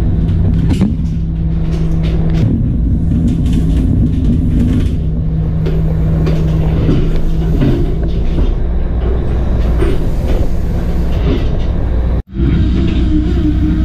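Loud, steady low rumble of a shrimp trawler's engines and deck machinery, with a steady whine that stops a couple of seconds in and again about eight seconds in, and scattered clanks and knocks. Near the end the sound drops out for an instant and comes back with a higher whine.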